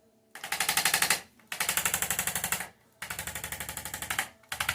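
Handheld percussion massager hammering on the back muscles in rapid pulses, about a dozen a second, in four bursts of around a second each with short pauses between.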